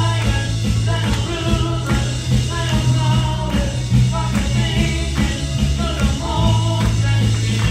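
Live worship band playing: a man sings lead over electric bass and drum kit, with a steady drumbeat and a prominent bass line.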